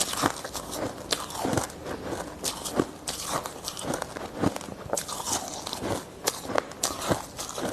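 Ice being bitten and chewed close to the microphone: irregular crunches and crackles as the ice breaks between the teeth.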